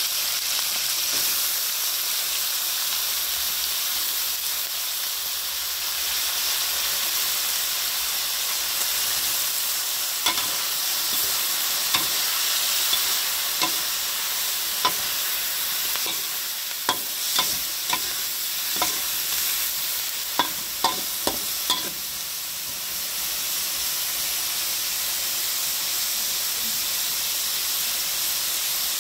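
Onion flower stalks and pork sizzling in a hot metal wok, a steady frying hiss. A spatula stirs through them, striking the wok in a run of sharp clicks through the middle.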